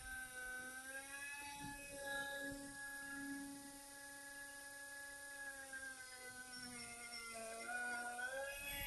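A man humming to himself in long, held notes, the pitch stepping up and down every few seconds.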